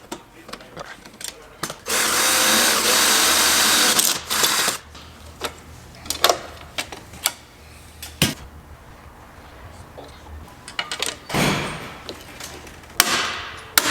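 Power drill running for about two and a half seconds, boring rivet holes in a body panel, amid scattered clicks and taps of hand tools and metal parts. Near the end come two shorter drill runs that wind down in pitch.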